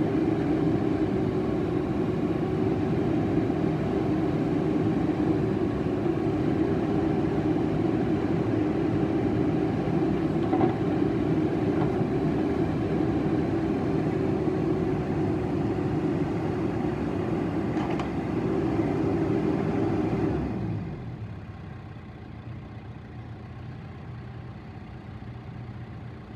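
John Deere 310SK backhoe loader's four-cylinder diesel engine running steadily. About twenty seconds in, the sound drops sharply to a quieter, duller hum.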